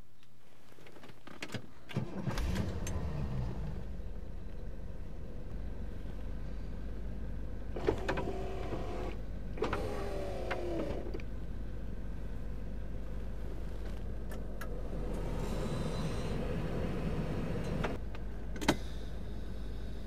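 The electric power window motor of a 1967 Cadillac Eldorado running the door glass, a whine that bends in pitch as the glass travels, in two spells, over a steady low hum. A sharp click comes near the end.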